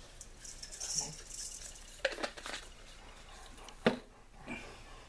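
Seasoning being shaken from a spice shaker over ground beef, a soft high hiss, with a few sharp clicks and knocks of containers being handled; the loudest click comes about four seconds in.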